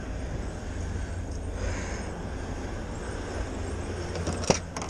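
Steady low rumble, with a sharp click about four and a half seconds in as the pickup's door handle is pulled and its latch releases.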